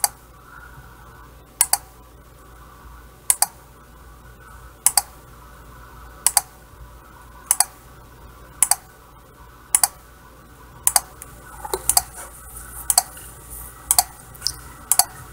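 A small 5-volt relay module clicking as a 555 timer pulses it, each pulse a quick double click; each one pulls the CB radio's channel-up line low to step the channel, making a home-made scan. The clicks come about every one and a half seconds at first and speed up to about one a second by the end.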